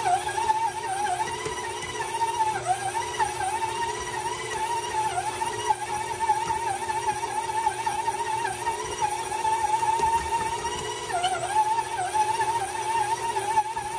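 KitchenAid stand mixer running, its dough hook kneading a ball of bread dough: a steady motor whine that wavers and dips in pitch every few seconds.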